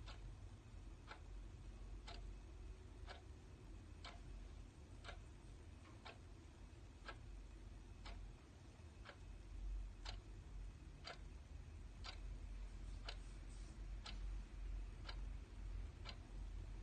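Clock ticking steadily, one tick a second, over a low background rumble.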